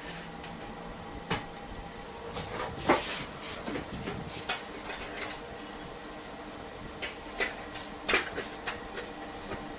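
Scattered clicks and knocks of a circuit card and its wire connectors being handled and fitted into an inverter's cabinet, the loudest about three seconds in and again near eight seconds, over a faint steady hum.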